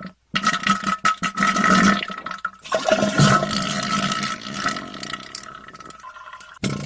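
Sound effect of rushing water, loudest in its first three seconds, then fading until it stops about six seconds in.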